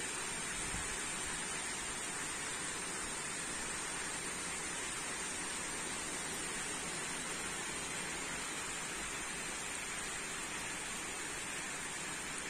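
Steady rain falling, an even hiss with no separate drops or gusts standing out.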